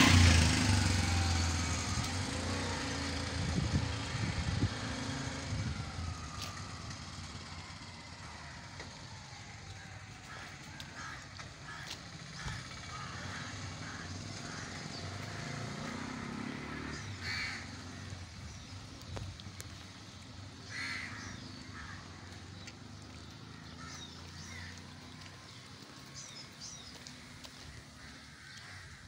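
A tuk-tuk's small engine running close by and fading away over the first few seconds. Then quiet street ambience with crows cawing now and then, a few louder caws in the second half.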